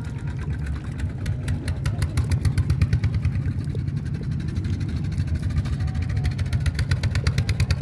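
A small engine running with a rapid, even chugging of about eight beats a second, growing louder about two seconds in.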